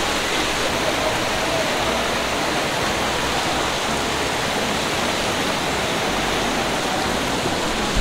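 Waterfall and fast stream rushing over rocks: a loud, steady roar of falling and churning water.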